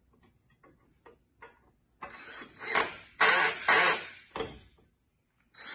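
Cordless drill driving the Allen bolts that hold a metal chair's front legs, running in several short bursts of a second or less as each bolt is tightened, after a few light clicks.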